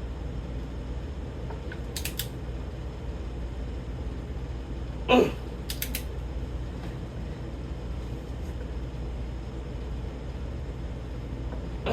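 Steady low hum with a few light metallic clicks of a socket and wrench on a bolt, and a brief short vocal sound of effort about five seconds in, while a bolt is pulled toward 75 ft-lb.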